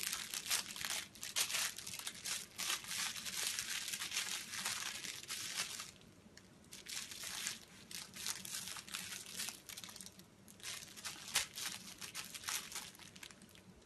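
A puppy chewing and shaking a plush toy, its crinkly inside crackling in quick, irregular bursts, with a brief pause about six seconds in.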